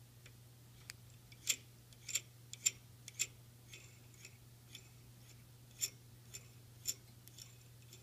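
Irregular light metallic clicks and taps, some fifteen in all, as a nut goes onto a brass threaded lamp rod and the rod is fed through a lathe's hand wheel and hollow headstock spindle. A steady low hum runs underneath.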